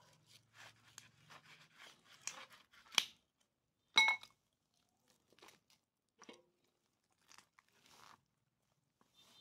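Knife cutting and tearing through roast duck skin and meat, with a run of crackling and crunching. A sharp click comes about three seconds in and a louder ringing clink about a second later, followed by scattered faint crackles.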